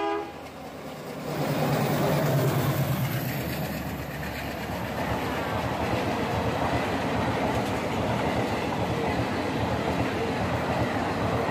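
Passenger train running on the track, heard from inside the coach: a steady rumble and rattle of wheels and carriage that grows louder over the first couple of seconds and then holds.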